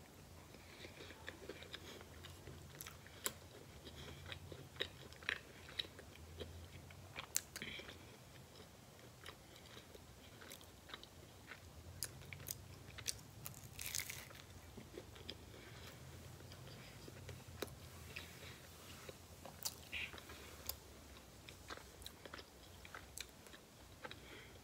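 A person biting into and chewing a Hot Pocket: quiet mouth sounds with scattered small crunches and clicks of the pastry crust.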